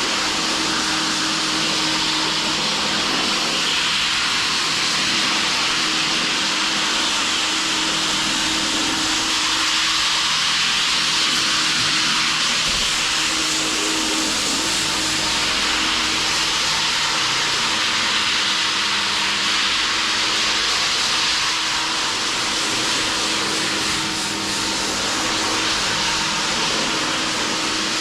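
Floor sanding machine running steadily on a wood floor, a constant loud whirring hiss with a faint steady hum beneath.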